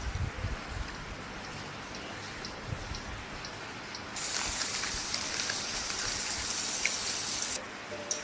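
A steady rain-like hiss that gets louder about four seconds in and drops back near the end. Faint light clicks, like a spoon against a glass of yogurt, come through early on, and a few low knocks sound at the very start.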